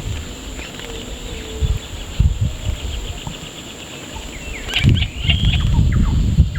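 Outdoor wetland ambience: a steady high insect drone, scattered bird chirps and calls that bunch together about five seconds in, and a low rumble that fades in the middle and swells again near the end.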